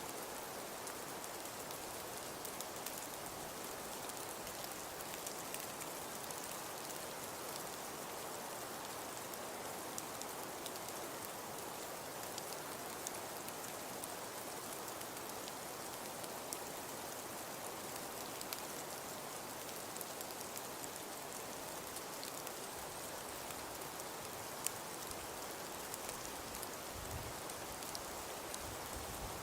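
Steady, even hiss of falling precipitation pattering on surfaces, dotted with many tiny ticks, used as a snowfall ambience; a few faint low bumps come near the end.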